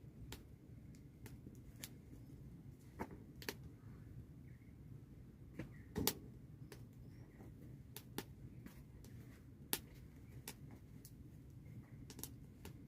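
Faint, irregular sharp taps and clicks, one to two a second, with a louder one about six seconds in, over a low steady hum.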